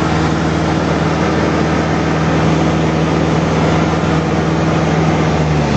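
Light aircraft's piston engine and propeller droning steadily in flight, heard from inside the cockpit over a constant rush of air.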